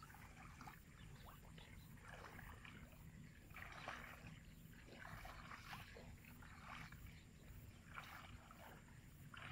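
Faint footsteps wading through a flooded rice paddy: a splash and swish of stalks every second or so, over a low steady rumble.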